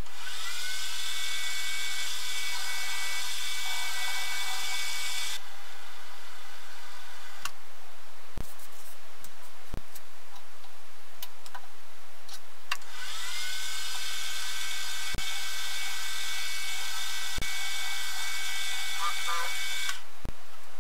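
Benchtop milling machine spindle spinning up with a rising whine, running steadily for about five seconds, then stopping. A few sharp clicks and knocks follow as the aluminium part is handled in the vise. Then the spindle spins up again and runs steadily for about seven seconds before stopping just before the end.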